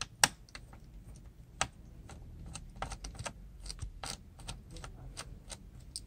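Light, irregular clicks and taps, a few a second, from a small screwdriver and fingers working the screws of a laptop's hard drive caddy and its plastic chassis. The sharpest click comes just after the start.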